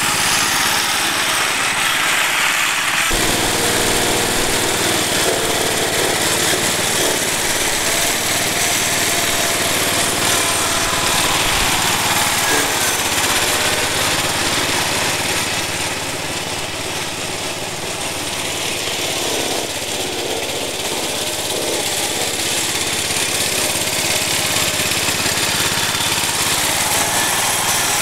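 Cub Cadet 1250 hydrostatic garden tractor's single-cylinder engine running steadily as the riderless tractor drives and turns under radio control. It grows a little quieter for a few seconds in the middle, then comes back up.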